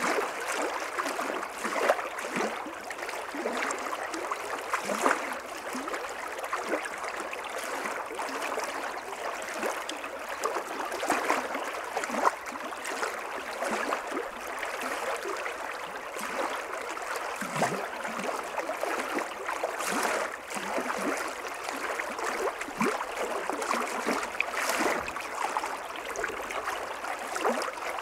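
Small stream flowing over a shallow riffle: a steady rush of water with many small splashes and bubbling sounds.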